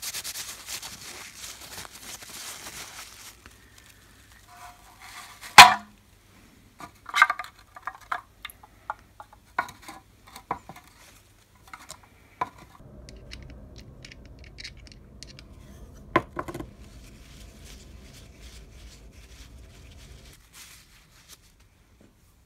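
Paper towel rubbing briskly over a small machined steel nut, then scattered sharp clicks and clinks as the nut is handled and set into a small plastic tub, the loudest click about five and a half seconds in. A low steady hum runs through the second half and cuts off near the end.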